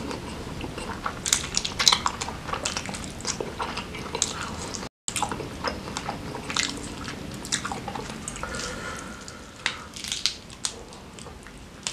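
Close-miked chewing and wet mouth smacks of a person eating sambal-coated grilled chicken (ayam bakar), with many quick clicks from biting and pulling meat off the bone. The sound cuts out for an instant about five seconds in.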